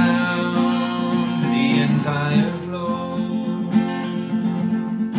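Acoustic guitar strummed in a steady rhythm. A man's sung line trails off in the first half, and the guitar carries on alone.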